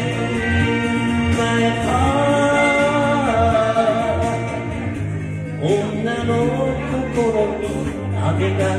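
Man singing a Japanese enka ballad into a karaoke microphone over the song's backing track, holding long notes with vibrato.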